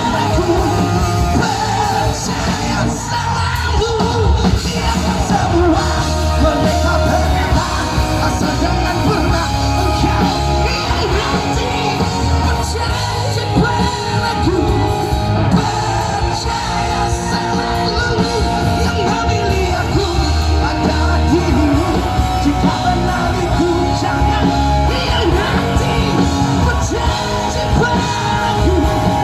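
Live rock band playing loud amplified music with singing voices over it.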